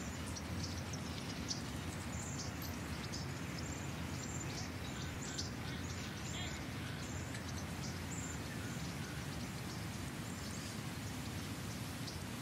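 Outdoor town ambience: a steady low rumble of background noise with short, high bird chirps repeating through it.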